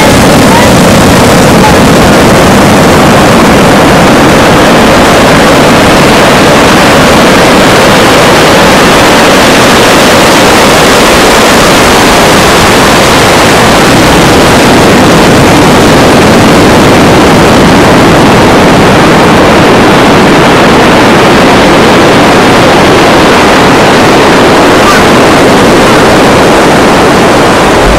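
Loud, steady rushing noise of ocean surf mixed with wind buffeting the microphone.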